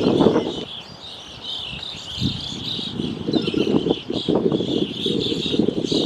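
Many birds calling at once, a dense high chatter of short overlapping chirps, over a low rushing noise that swells and fades.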